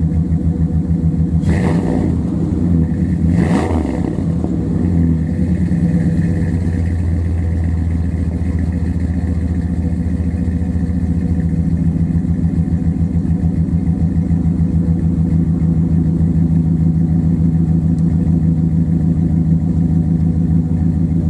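Exhaust of a 2000 Dodge Ram 1500's 5.9 Magnum V8, breathing through headers and a Jones muffler, heard at the tailpipe. It idles with two quick throttle blips in the first four seconds, then settles into a steady idle.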